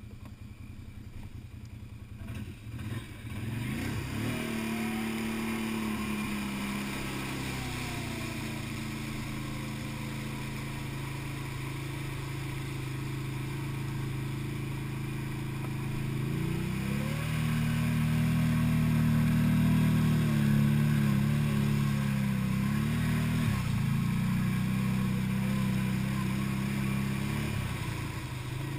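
ATV engine running under load as the quad wades through deep water, with water splashing and hissing around the front. The engine picks up a few seconds in, then gets louder past the middle with a couple of quick rises and dips in revs.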